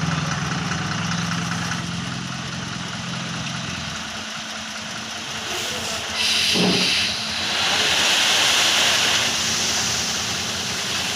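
Diesel engine of a tipper truck running with its body raised for unloading; its low hum fades out about four seconds in. Then loud hissing rushes come about six seconds in and again from about seven and a half seconds, as the load of sand slides out of the tipped body.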